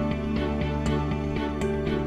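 Soft instrumental background music: sustained notes with light percussive ticks.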